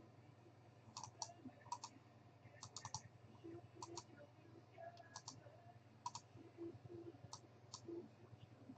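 Faint, irregular clicks, many coming in quick pairs, with a low hum underneath.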